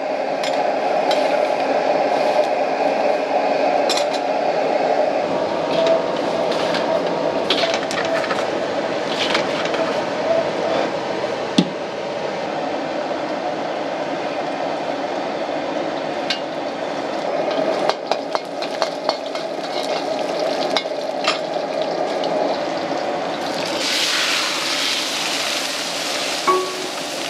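Gas wok burner running steadily under a carbon-steel wok, with a metal wok spatula scraping and clinking against the pan in scattered clicks. Near the end a loud sizzling hiss starts as liquid hits the hot wok and throws up steam.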